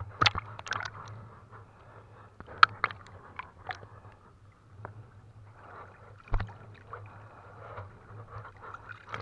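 Water splashing and lapping as a trammel fishing net is fed out into a river, with several sharp knocks and scrapes, the loudest a little over two and a half seconds in. A low steady hum runs underneath.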